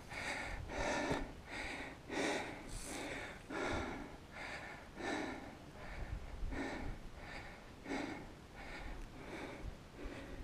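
A climber's heavy breathing from the exertion of a steep climb, quick breaths in and out at about two a second.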